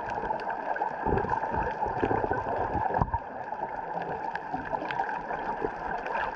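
Muffled underwater water noise from a camera held below the surface: steady sloshing and gurgling, with low thumps about a second in and again around three seconds in.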